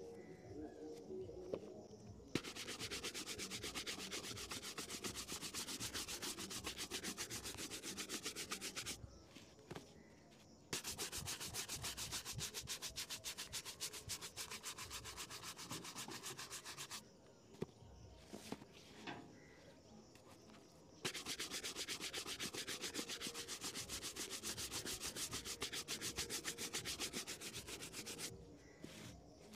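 Stiff bristle shoe brush worked rapidly back and forth over a brown leather shoe, brushing in the polish. It comes in three long bouts of fast strokes, starting about two seconds in, with short pauses between.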